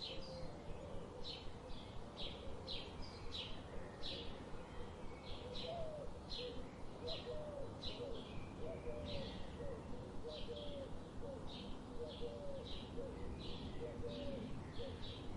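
Birds chirping: a short high chirp repeated steadily, roughly every half second, over fainter, lower wavering calls.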